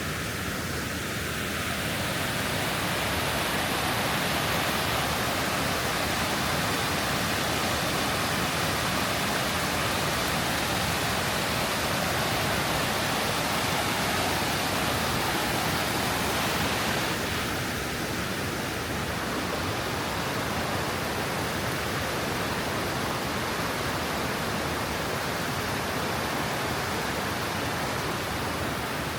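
Steady rush of water from the Krka River's waterfalls, a little louder for the first half and easing slightly after about seventeen seconds.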